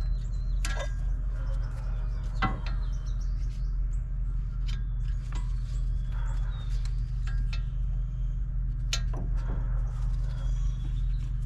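Scattered sharp clicks and knocks of hand work on a pickup truck's front wheel hub area, with a clip being pried out, over a steady low hum. Faint bird chirps in the background.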